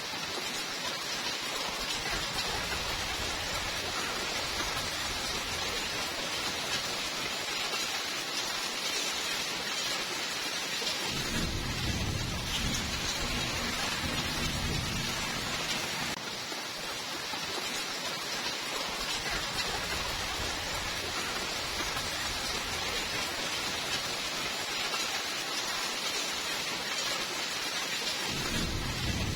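Steady rainfall hissing, with a low rumble of thunder rolling under it twice: for several seconds from about eleven seconds in, and again near the end.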